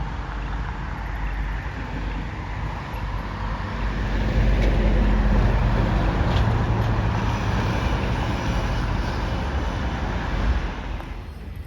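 Road vehicle noise, a dense rumble with hiss above it that grows louder about four seconds in and drops off near the end.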